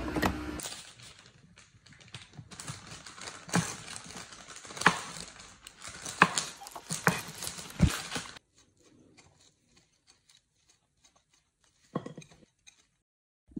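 Kitchen knife slicing a block of cheese on paper wrapping: a run of irregular knocks and paper rustles that stops about eight seconds in, followed by one short scrape near the end.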